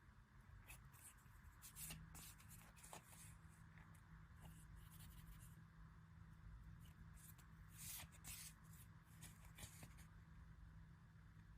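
Faint rustling and scratching of paper and plastic packaging and cards being handled, in short scattered bursts. A low steady hum comes in about two seconds in.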